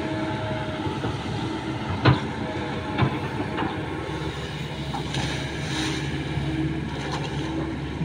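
Kobelco SK200 hydraulic excavator's diesel engine running steadily as it swings and lowers its arm and bucket into the muddy trench. Two short, sharp knocks come about two and three seconds in.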